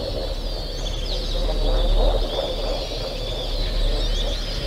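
Dense outdoor nature chorus: many birds chirping and calling at once in short, high, overlapping notes, over a busy lower chattering layer of animal calls and a steady low rumble.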